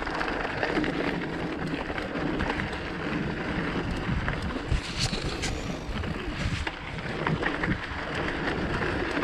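Mountain bike rolling along a rough trail: tyres crunching over stones and gravel with scattered clicks and knocks from the bike rattling, and wind on the microphone.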